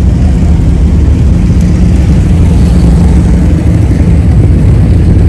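Motorcycle engines running with a loud, steady, deep rumble.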